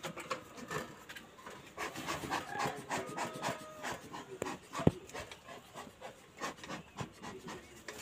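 Handling of a stainless-steel bee smoker as it is loaded and readied: scattered clicks, light knocks and rubbing scrapes of metal and fuel, with a brief squeak a little after three seconds and one sharp knock just before five seconds.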